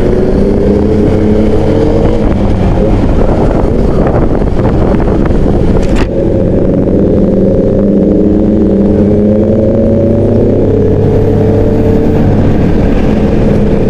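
A Honda scooter's engine running while it is ridden, heard close up from the rider's seat together with road noise. The engine note climbs slowly for a few seconds partway through, then eases off about ten seconds in.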